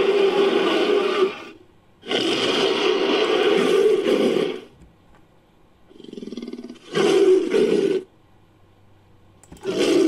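Fan-made dinosaur roar sound effect for an 'Allospinosaurus', mixed from Allosaurus, Spinosaurus and monster roar recordings. A roar ends about a second in, a long roar runs from about two to four and a half seconds, a quieter, lower call comes near six seconds, a short roar follows at about seven, and another roar begins just before the end.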